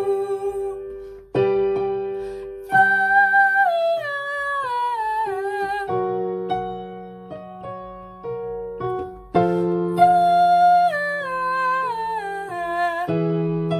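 A woman singing fast descending vocal runs, an agility exercise, first on "you" and then on "yeah", over held chords on a Yamaha keyboard. Each run steps down through the scale, and a new run starts every few seconds.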